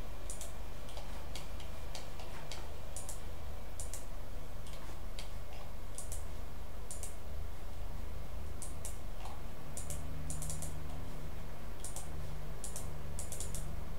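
Scattered light clicks of a computer mouse, some in quick pairs, over a steady low hum and hiss.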